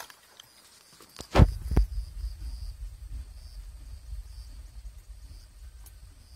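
Wind buffeting the camera's microphone: two loud gusts about a second and a half in, then a steady low rumble.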